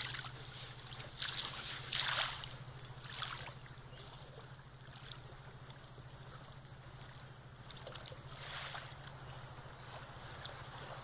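German shepherd digging in beach sand: irregular bursts of paws scraping and sand spraying, several in the first few seconds, a quieter stretch, then more about eight seconds in.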